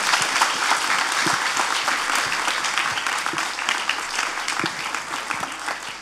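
Church congregation applauding, the clapping slowly dying away toward the end.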